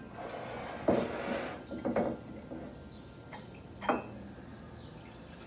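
Kitchenware being handled on a countertop: a tea strainer and a small teapot clinking and knocking, with sharper knocks about one, two and four seconds in.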